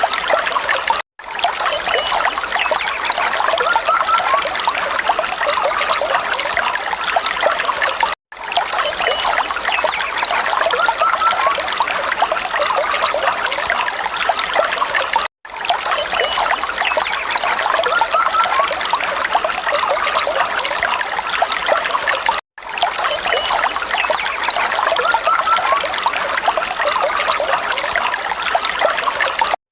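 Falling water trickling steadily, a short recording played in a loop so that the sound cuts out for a split second about every seven seconds.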